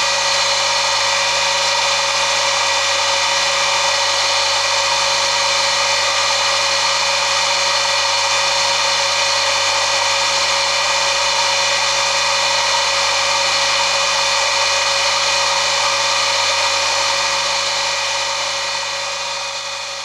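Bench polishing motor with a buffing wheel running steadily: a constant machine hum and whir. It fades out near the end.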